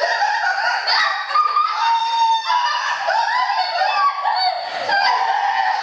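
High-pitched, continuous laughing and squealing from a person, with no clear words.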